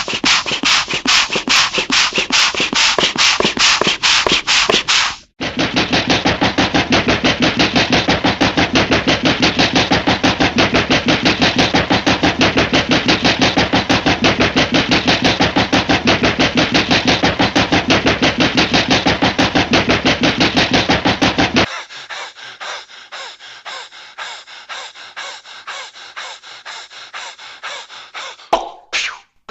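Cartoon sound effect of a fast, loud mechanical rattle. It breaks off briefly about five seconds in, starts again, and turns quieter and thinner at about 22 seconds.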